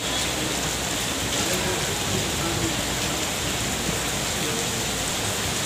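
Monsoon rain falling steadily on brick paving and grass, a dense even hiss of drops on wet ground.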